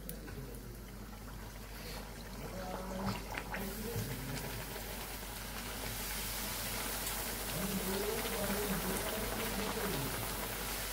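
Wheat-flour puri deep-frying in hot oil in a kadai: steady sizzling and bubbling that grows louder from about four seconds in.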